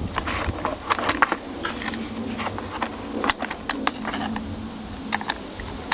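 Scattered plastic clicks and knocks as the Karcher K2 pressure washer's black-and-yellow plastic casing is handled and turned on a metal mesh table, over a low steady hum.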